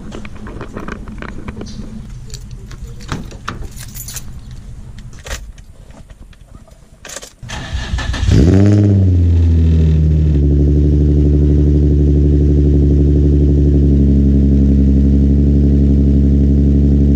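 Keys jangling and clicks of handling, then a car starting about eight seconds in: an Infiniti G35 coupe's 3.5-litre V6 cranks, catches with a brief rev that rises and falls, and settles into a steady idle.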